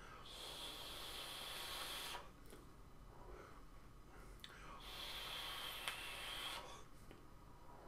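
Two draws on an e-cigarette, each about two seconds of faint, steady airy hiss as air is pulled through the atomizer, with a quieter stretch between them while the vapour is exhaled.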